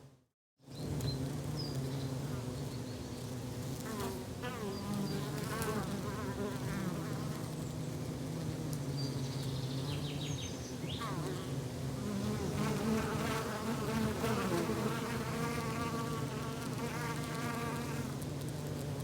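Forest ambience with a flying insect buzzing close by, its pitch wavering up and down as it moves about, over a steady low hum. The sound cuts out completely for about half a second right at the start.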